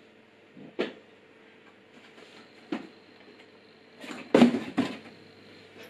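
Knocks and thumps of an unpowered metal cut-off grinder being lifted out of its cardboard box and set on a workbench, with the cardboard box scraping as it is shifted. There are single knocks about a second in and again near three seconds, then a louder cluster of knocks and scraping around four to five seconds in.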